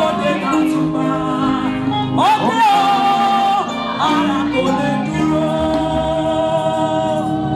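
A woman singing a gospel song into a microphone over live backing music, with held notes and sliding runs.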